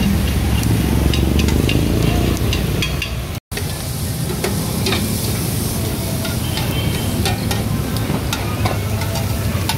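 Metal spoon scraping and clinking on hot sizzling plates as onions and chilies are stir-fried, with a steady sizzle of frying food beneath many short clicks. The sound cuts out for an instant about three and a half seconds in.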